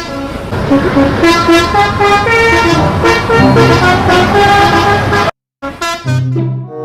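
Musical vehicle horn playing a run of changing notes over a noisy background, cutting off suddenly about five seconds in. After a short gap a lower horn tone sounds near the end.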